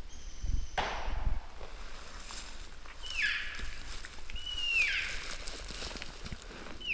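Elk calls: a high whistle held briefly, then swooping down sharply about a second in, followed by three shorter high calls, each sliding down in pitch.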